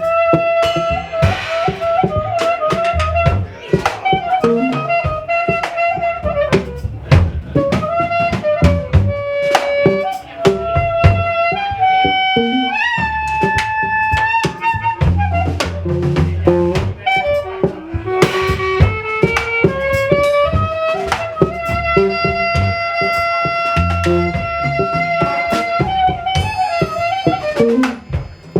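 A jazz trio playing live: a held, sliding melody line over bass notes and steady drum hits.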